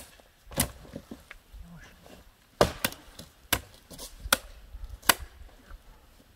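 A blade chopping on wood: about seven sharp strikes at uneven intervals.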